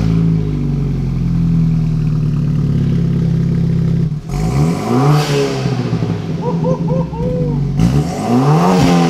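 BMW F30 328i's turbocharged four-cylinder, just started through a freshly installed downpipe and axle-back exhaust, idling high and steady for about four seconds, then revved twice with a few quick blips between.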